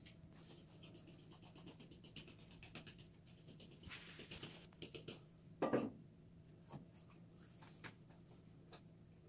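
Quiet kitchen handling noises while preparing pastry: light scratchy rubbing and small clicks, with one louder knock about six seconds in.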